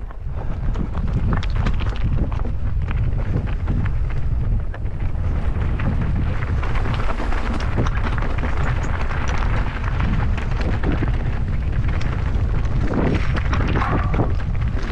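Wind buffeting the microphone of a moving mountain bike, with rumble from the tyres and frequent small clicks and rattles from rough trail. It builds over the first second, then holds steady.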